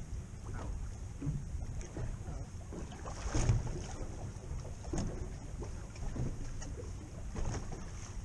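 Wind buffeting the microphone on the open deck of a boat at sea: an uneven low rumble that swells and eases, strongest about three and a half seconds in.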